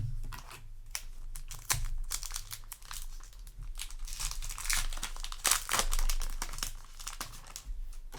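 Foil Yu-Gi-Oh! booster pack wrapper crinkling as it is handled, in quick irregular crackles that are busiest around the middle.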